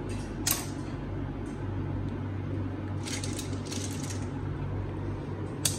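Clam shells clinking and clattering lightly as fingers rummage through boiled, opened clams in a stainless steel colander: a click about half a second in, a small cluster around three seconds, one more near the end. A steady low hum runs underneath.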